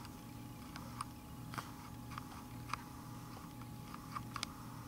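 Quiet handling of a small polymer clay charm held close to the camera: a few faint scattered clicks over a low steady hum.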